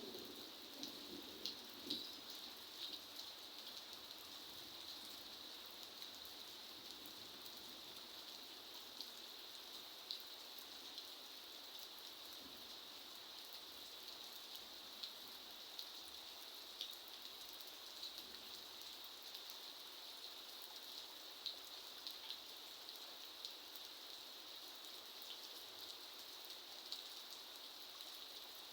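Steady rain falling: an even hiss with many scattered sharper drops landing.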